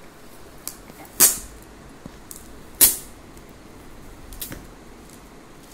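Red metallic foil gift wrap and curling ribbon crinkling as a present is untied and unwrapped, with two loud sharp crackles, about a second in and again just under three seconds in, and a few fainter rustles.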